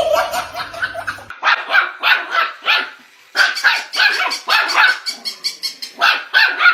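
Dog barking in a rapid run of short, sharp barks, about three a second, pausing briefly about three seconds in and then going on.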